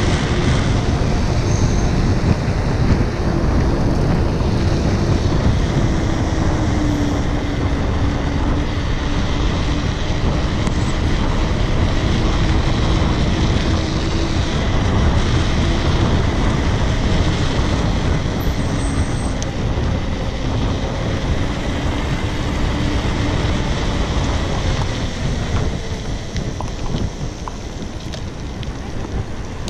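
Wind rushing over the camera microphone and tyre noise from a bicycle coasting fast downhill on asphalt, with a faint hum that wavers slightly in pitch. The noise eases a little near the end.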